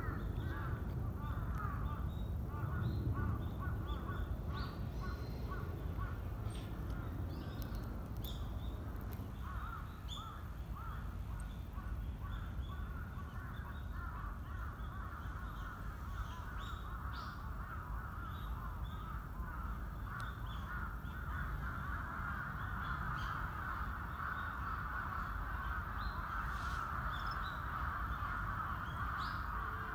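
A dense chorus of birds calling without pause in harsh, rapid calls, louder over the last third, with short sharper chirps scattered above and a low outdoor rumble beneath.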